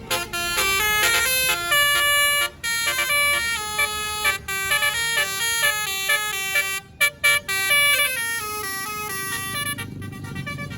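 A tourist bus's basuri 'telolet' musical air horn playing a quick tune of stepped notes, which stops about ten seconds in, leaving the bus's engine running underneath.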